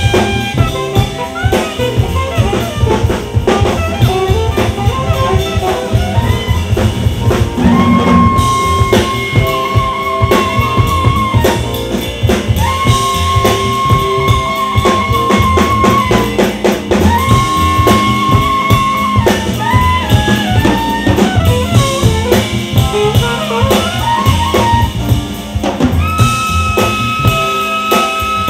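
Alto saxophone soloing over a live jazz-funk band with drum kit. The sax plays fast runs between several long held high notes, the last and longest starting near the end.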